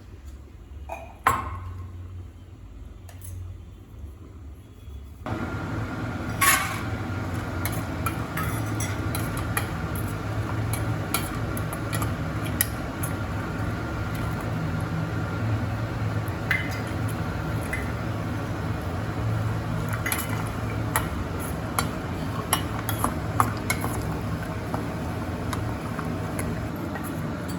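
Cashews and raisins frying in ghee in a small pan, with a spoon clinking and scraping against the metal as they are stirred. A steady hiss and low hum start about five seconds in and carry on under the clinks.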